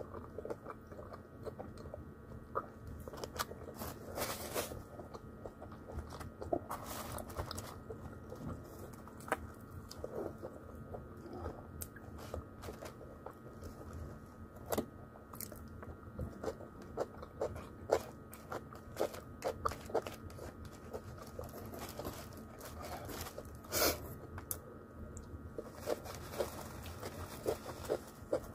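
Close-miked chewing and biting of crispy fried chicken: irregular crunches and mouth clicks throughout, over a faint steady hum.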